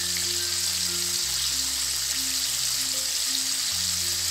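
Flour-coated chicken pieces deep-frying in hot oil: a steady, even sizzle of the oil bubbling around the pieces as they fry on toward golden brown. Soft background music with long held low notes plays under it.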